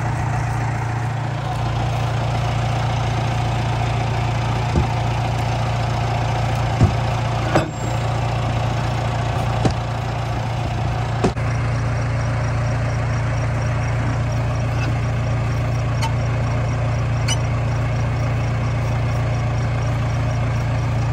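Crawler loader's engine idling steadily, with a handful of sharp metal clanks as steel fork tines are handled and fitted onto its bucket.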